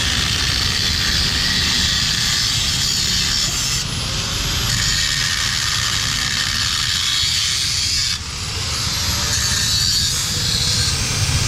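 Steady mechanical workshop noise with a strong high hiss over a low rumble, changing abruptly about 4 and 8 seconds in.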